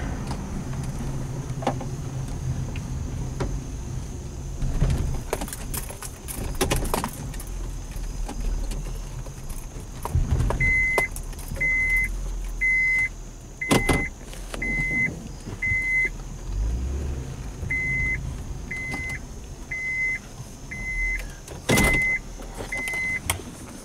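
Inside a 2010 Honda Ridgeline's cabin: a low vehicle rumble and a few sharp clunks. From about ten seconds in, the truck's warning chime beeps at a steady high pitch about once a second, twelve times with one short pause.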